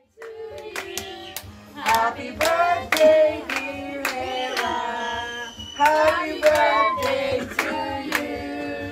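A group of women and children singing together, clapping along about twice a second.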